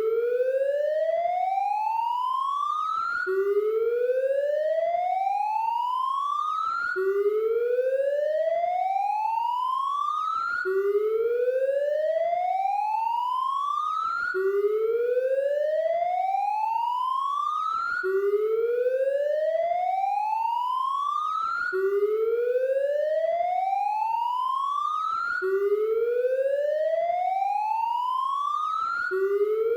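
Police car siren wailing: a tone climbs steadily over about three and a half seconds, drops back abruptly and starts again, repeating evenly.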